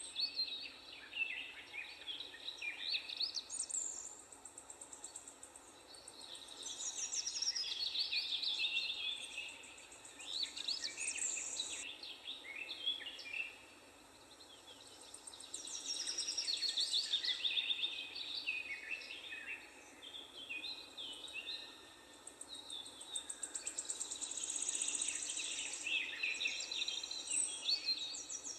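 Several birds singing and chirping at once, with overlapping trills and quick whistled phrases in waves that swell and fade every few seconds, over a faint steady background noise.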